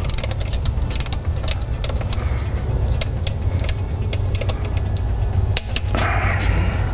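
Ratcheting torque wrench clicking in quick irregular strokes as the transmission valve body retaining-plate bolts are run down and torqued to 97 inch-pounds. Under it is a steady low hum, and a brief hiss comes about six seconds in.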